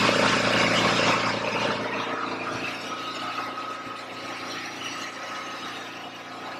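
A steady mechanical hum with a thin high whine, slowly growing quieter.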